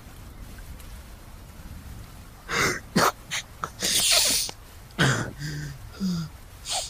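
A man sobbing. After a quiet start, sharp breaths and sniffs begin about two and a half seconds in, followed by a longer breathy exhale and two short low whimpers near the end.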